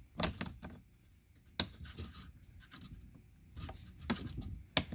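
Plastic pry tool scraping and levering against the plastic lower dash trim panel, working at a stubborn retaining clip. Quiet scraping with a few sharp plastic clicks: one near the start, one about a second and a half in, one near the end.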